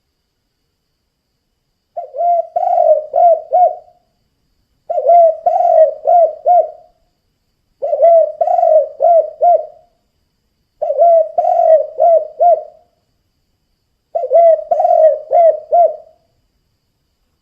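Spotted dove (tekukur) cooing its 'kuk 2' song: five phrases of several quick coos each, evenly spaced about three seconds apart.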